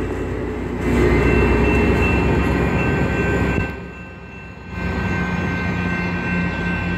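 Coaster EMD F40PHM-2C diesel locomotive passing and pulling away: a steady low diesel rumble with train noise and a few steady high-pitched tones over it. The sound dips briefly about four seconds in, then comes back.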